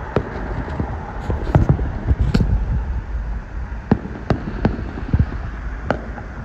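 Fireworks shells bursting overhead: a string of sharp bangs at uneven intervals, about eight or nine of them, over a steady low rumble.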